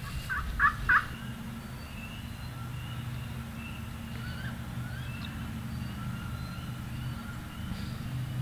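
Wild turkey gobbling in the first second: three quick, loud rattling bursts. Faint, evenly repeated high calls follow over a steady low hum.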